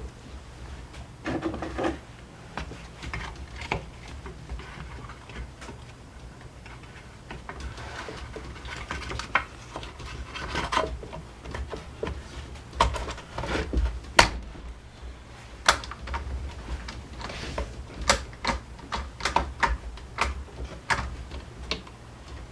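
Hands handling and fitting the small plastic and metal parts of a Honda UMK422 brush cutter: irregular clicks, taps and rubbing, busier in the second half, over a low steady hum.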